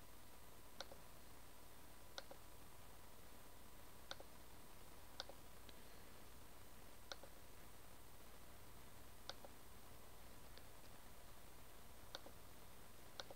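Faint computer mouse clicks, about eight single clicks spaced irregularly a second or two apart, over a low steady hum with a faint high whine.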